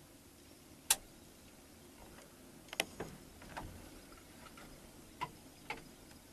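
A few faint, sharp clicks spaced over several seconds: the loudest about a second in, a small cluster near three seconds, and two more later on.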